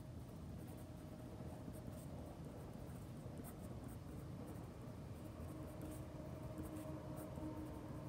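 Felt-tip marker pen writing on paper: faint, quick scratching strokes as a word is written out by hand, over a faint steady hum.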